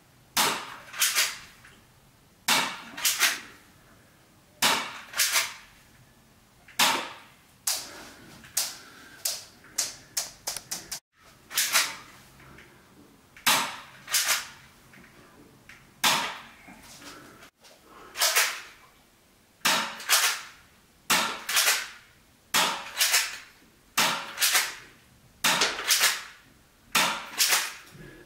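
Walther P22 airsoft replica pistol firing sharp cracks, mostly in quick pairs repeated every second or two, with a run of smaller clicks partway through.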